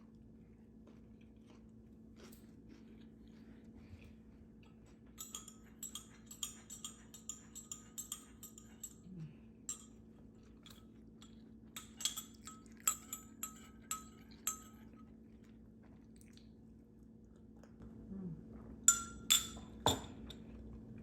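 Tableware clinking: two runs of light, quick ringing clinks, then a few louder clinks and a knock near the end. Faint chewing is heard under them.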